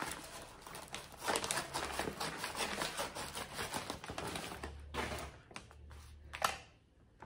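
Scissors cutting open a wrapped package, with the wrapping rustling and crinkling in quick small crackles and one sharper click near the end.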